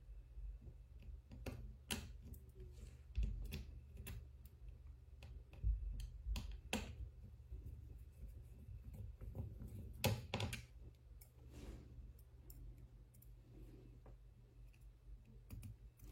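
Faint, scattered small clicks and taps, with a few soft knocks, from handling the small parts and tools while a replacement loudspeaker is fitted into an opened smartphone.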